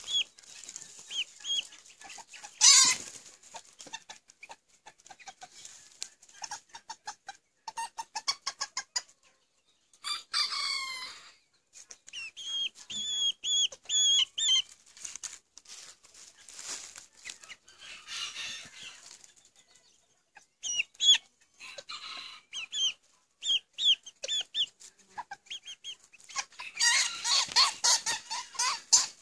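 Malaysian Serama bantam chickens clucking and calling in runs of short, high notes, with a few longer, louder calls.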